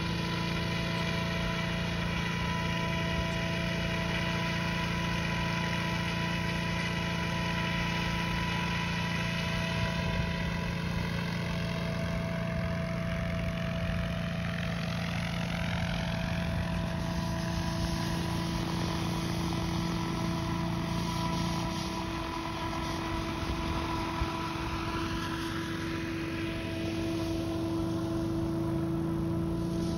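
Radio-controlled model helicopter flying slow, precise manoeuvres: a steady drone of engine and rotor whose pitch shifts as it moves. The sound changes and dips slightly about two-thirds through as it comes down to land, and it is still running on the pad near the end.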